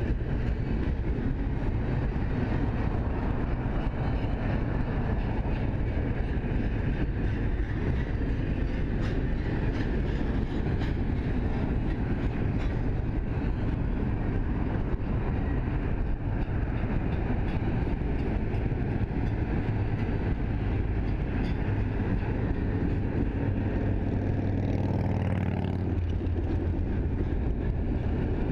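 Double-stack container well cars of a BNSF freight train rolling steadily past, the even noise of steel wheels running on the rails.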